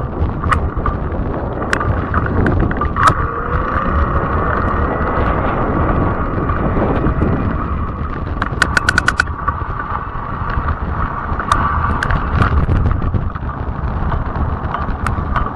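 Fat-tire e-bike being ridden: steady low noise of the ride with a steady high whine running through it. Scattered sharp clicks, and a quick run of about eight clicks a little past halfway.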